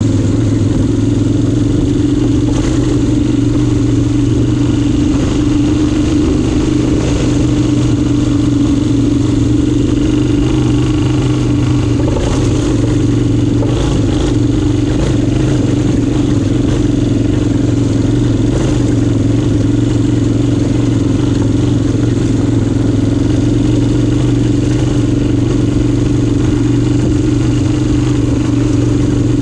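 Kasinski Comet 250 GT's 250 cc V-twin engine running at a near-steady engine speed, its pitch changing little throughout.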